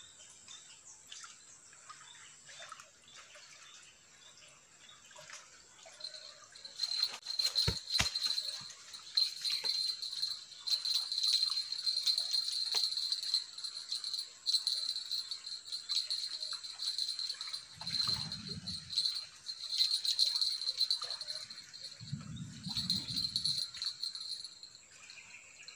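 Small bite-alarm bells on a fishing rod tip jingling and rattling on and off, from about six seconds in, as a fish takes the bait. There are a couple of sharp knocks a couple of seconds after the jingling starts.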